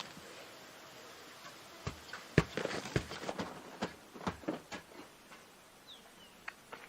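Irregular light knocks and scuffs for a few seconds, then two faint, high, falling chirps near the end.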